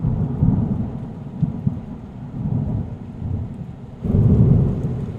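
Low, rough rumbling noise like thunder, swelling again about four seconds in.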